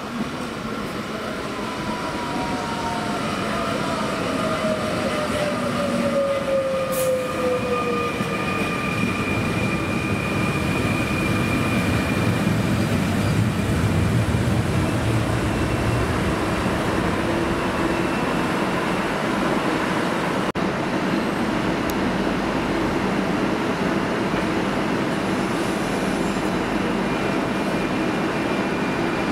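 Fertagus Series 3500 double-deck electric train arriving and braking along a station platform. Its motor whine falls in pitch over the first several seconds. The wheel and body rumble grows as the cars roll close by and then holds steady, with a thin high tone coming and going as the train slows.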